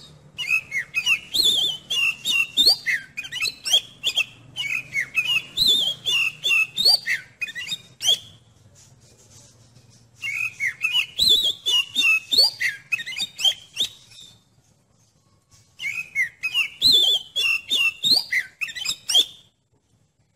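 Oriental magpie-robin (kacer) singing: three bursts of rapid, varied whistled phrases, separated by short pauses.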